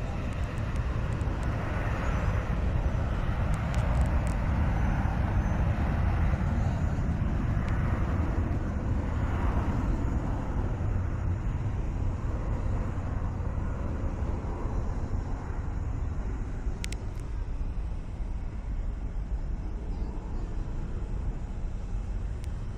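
Boeing 757 jet engines running as it departs along the runway, heard as a steady, loud rumble with a hiss above it that swells in the first half and eases later.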